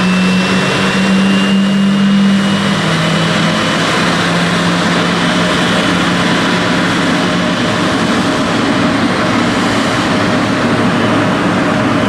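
The GE90-115B jet engines of a Boeing 777-300ER running loudly as a steady, dense rush of noise. A low hum fades away over the first few seconds, and a faint high whine rises slightly.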